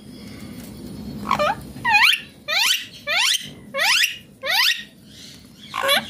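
Indian ringneck parakeet calling: a quick run of about seven harsh, downward-sweeping calls starting about a second in, with one more near the end.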